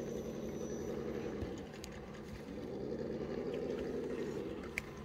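Electric motor and gearbox of an RC rock crawler whirring as it drives, its pitch rising and falling a couple of times with the throttle. A short click near the end.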